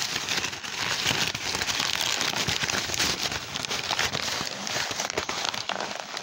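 Thin plastic bag crinkling and crackling as it is crumpled in a hand close to the microphone, a dense, continuous rustle.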